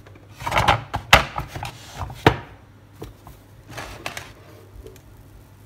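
Metal loaf tin knocked and bumped against a wooden cutting board while a baked loaf is turned out of it: a run of sharp knocks, the loudest just over one and two seconds in, with a few fainter ones near four seconds.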